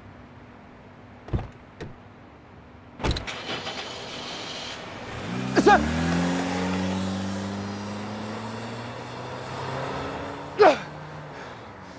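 A car door slams about three seconds in, then a car engine revs up and the car pulls away, its pitch rising and then fading. Twice a man shouts after it, the loudest moments.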